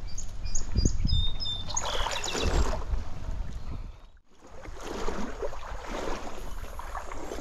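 Stream water sloshing and splashing around the wader, in two swells, with wind rumbling on the microphone. There are a few short, high chirps in the first two seconds, and the sound drops out briefly about four seconds in.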